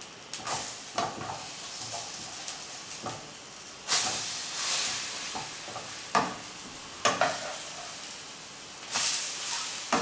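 Banana pancakes sizzling in coconut oil in a frying pan as they are flipped, with a spatula knocking and scraping on the pan a few times. The sizzle swells loudly about four seconds in and again near the end, as the turned pancakes land on the hot pan.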